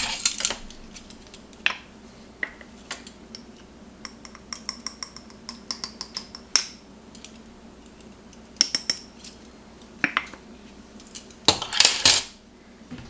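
Kitchen clatter: utensils and dishes clinking and knocking together in a string of light clicks, some ringing briefly, with louder clatters at the start, around the middle and near the end.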